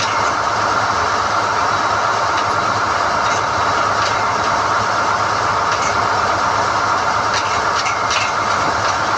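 SDH-1600 core drilling rig running steadily while NQ drill rods are hoisted, with a few faint metallic clicks near the end.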